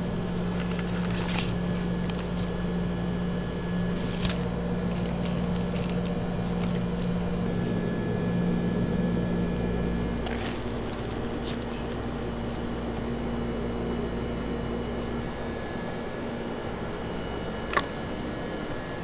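Kitchen room tone: a steady hum from running equipment. The hum changes about ten seconds in, and there are a few light clicks and taps, the sharpest near the end.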